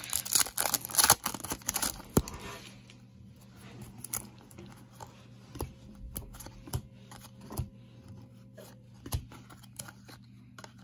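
Foil wrapper of a 2008 SP Rookie Edition card pack crinkling and tearing open for the first two and a half seconds or so. After that come quieter scattered clicks and rustles as the cards are slid and flipped through one by one.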